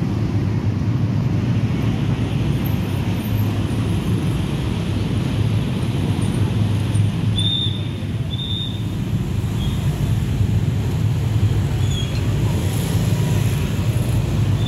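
Steady road-traffic noise of motor scooters and motorcycles running across a railway level crossing, a continuous low engine rumble. A few short, high peeps come about halfway through and again near the end.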